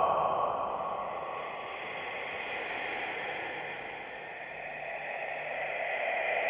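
Whispered, breathy breathing with no voice behind it: a long breath that fades away over the first four seconds or so, then swells up again toward the end.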